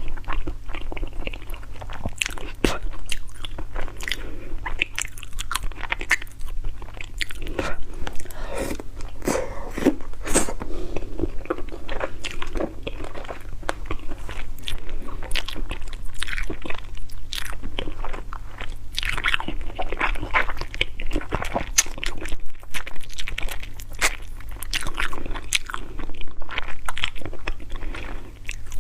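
Close-up chewing and biting of stewed frog, with many irregular crisp crunches and clicks as the small bones are bitten through. A steady low hum sits underneath.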